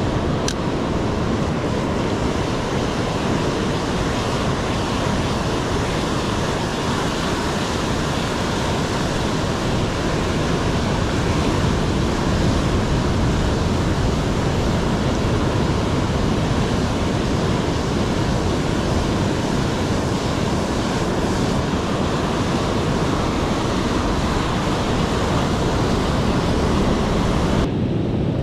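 Rough sea surf washing in a steady, dense rush, with wind buffeting the microphone.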